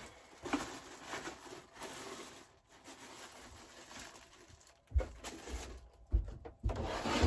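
Plastic bag crinkling and rustling as it is handled, then, from about five seconds in, footsteps thudding on the floor of a converted bus.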